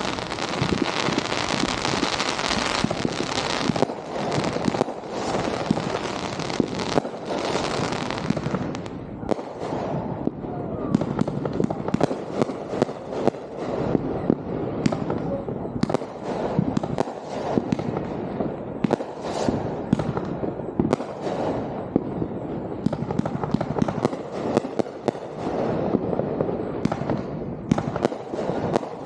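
Fireworks display: a continuous crackle with many sharp bangs, several a second, denser during the first eight seconds or so.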